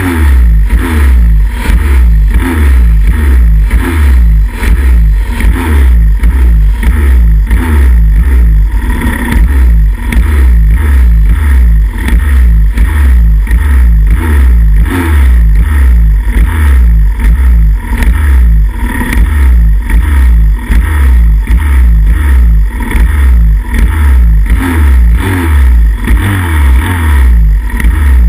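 Pit bike engines running at the start gate, very loud close to the handlebar. They are revved in quick, repeated throttle blips that rise and fall about twice a second while the bikes wait for the gate to drop.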